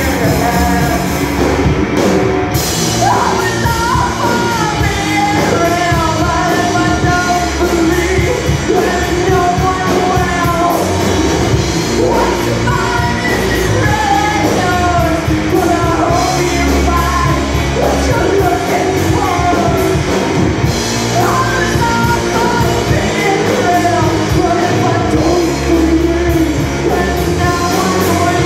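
Live rock band playing a song, loud and unbroken: electric guitars, keyboards and drums, with a woman singing lead.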